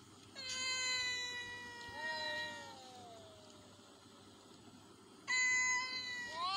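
Cats yowling at each other in a standoff: long, drawn-out warning yowls that slowly fall in pitch. The first starts about half a second in and trails off around three seconds, with a second voice joining partway. A louder yowl starts about five seconds in.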